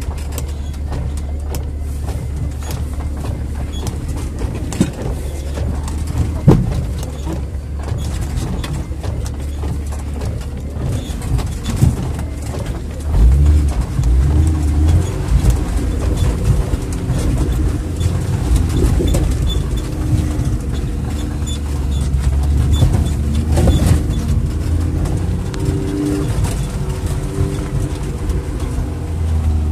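Off-road 4x4's engine running under load, heard from inside the cab, with a steady low rumble and the engine note rising and falling as it climbs over rough snowy ground. A sharp knock comes about six and a half seconds in, as the vehicle jolts.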